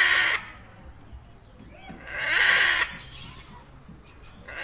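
Macaw squawking: one call ending just as it begins, a second call about two seconds in lasting under a second, and a third starting near the end.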